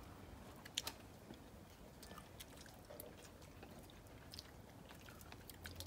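Faint chewing of steamed eel, with a few light, sharp clicks of chopsticks against the dishes, the sharpest about a second in.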